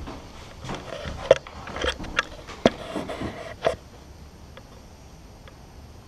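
Irregular knocks and clatters on wood inside a small wooden bird hide, a few of them sharp and loud, stopping about four seconds in; after that only faint ticks about once a second.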